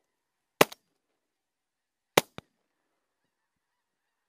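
Two shotgun shots, about a second and a half apart, each followed a fraction of a second later by a fainter crack.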